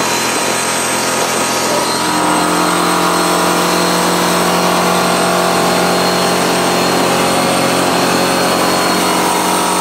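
Big-block V8 engine of a performance powerboat running hard at speed, a steady drone mixed with wind and water rush; it gets slightly louder about two seconds in.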